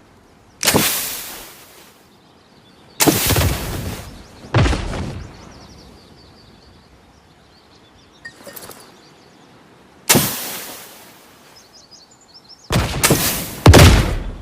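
Grenade and satchel-charge explosion sound effects: about six sharp blasts, each dying away over about a second, the last two coming close together near the end. Faint birdsong chirps between them.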